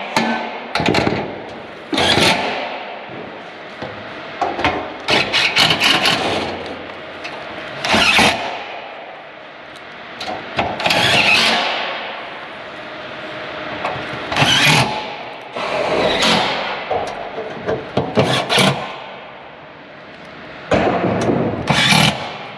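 Cordless impact driver driving screws into galvanized light-gauge steel truss members, in repeated bursts of about half a second to a second each, with short sharp knocks between them.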